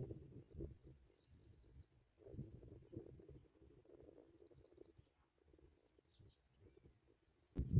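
Small birds chirping in short bursts of three or four quick high notes, repeated a few times, over a low rustling rumble; a sudden thump near the end.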